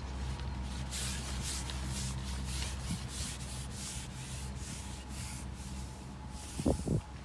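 Carbon fishing pole sliding through the angler's hands, a run of short rasping rubs about three a second as he works it hand over hand, followed near the end by two short soft knocks.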